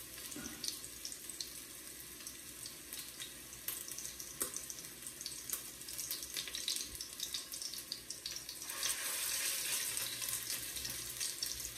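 Meatballs frying in hot Crisco shortening in a cast iron Dutch oven: a steady sizzle with scattered small pops, swelling louder and denser about nine seconds in.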